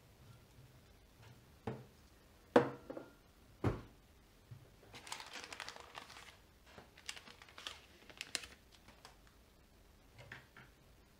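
Three sharp knocks as hard items are handled and set down on a silicone repair mat, the loudest about two and a half seconds in. Then the crinkling rustle of an anti-static plastic bag holding a replacement Samsung Galaxy S10 display as it is handled and drawn from its paper envelope, with a few light clicks and taps after.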